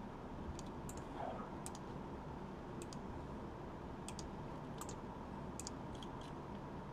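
Faint, irregular clicking of a computer keyboard and mouse, about one or two clicks a second.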